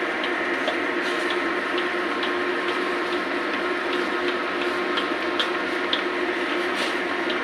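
Broth boiling hard in a wok around a whole fish: a steady bubbling hiss with many small irregular pops, over a steady low hum.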